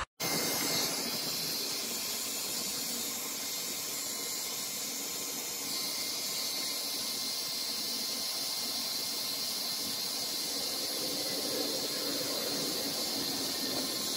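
Cheap two-temperature Harbor Freight heat gun blowing hot air onto a plastic strip: a steady hiss from its fan that gets slightly brighter a little before halfway through.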